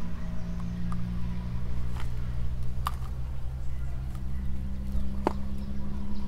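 A motor running steadily with a low, even hum, with a few sharp clicks over it.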